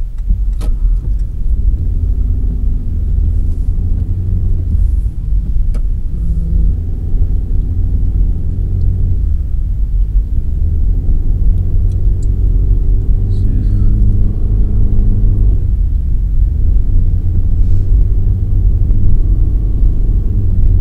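Car driving on a wet road, heard from inside the cabin: a steady low rumble of engine and tyres, with the engine note rising and falling several times.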